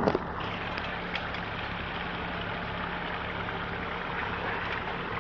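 A motor engine idling with a steady low hum, over a constant hiss, with one sharp knock at the very start.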